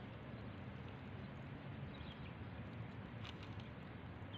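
Steady outdoor background noise with a low hum and a few faint short bird chirps about two seconds in, and a single light click a little after.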